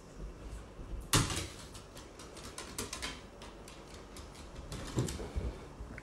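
A series of scattered clicks and knocks, the loudest about a second in and another near the five-second mark, over a low rumble.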